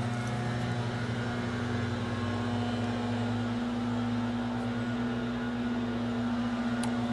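Gas-powered leaf blowers running steadily, heard as a constant engine drone, with one light click near the end.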